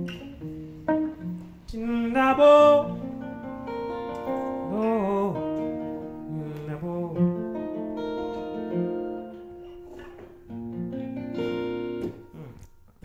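Steel-string acoustic guitar with a capo, played solo: a picked melodic instrumental passage of changing notes, some of them gliding in pitch.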